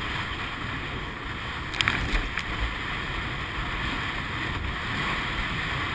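Wind buffeting the microphone over the rush of water along a rowed surf boat's hull. About two seconds in there is a short cluster of sharp knocks.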